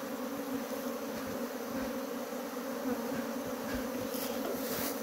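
A swarm of honeybees (Apis mellifera) buzzing in a steady, low hum, with many bees flying around the hive box as the swarm moves into it. A brief rustle near the end.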